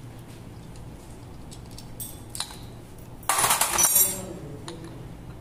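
Small metal clutch parts clinking as the clutch pressure-plate bolts and springs are taken out of a Kawasaki Z1000 motorcycle. A couple of light clicks come first, then a short, loud metallic clatter about three and a half seconds in.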